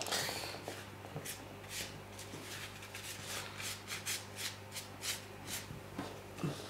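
Ink brush scrubbed and swept across paper in quick strokes, a dry scratchy swish about three to four times a second, over a steady low hum.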